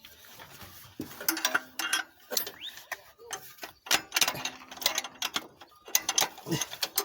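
Socket ratchet clicking in short, irregular runs with metal tool clinks, working a glow plug in a diesel engine's cylinder head.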